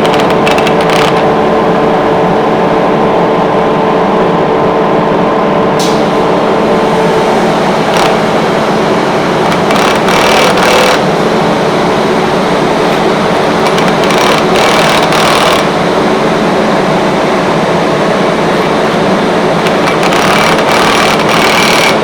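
Rotary screw air compressor running loudly and steadily, a hum of several steady tones, one of which drops out about seven seconds in. Short metallic clatters of handling or tools come through at intervals.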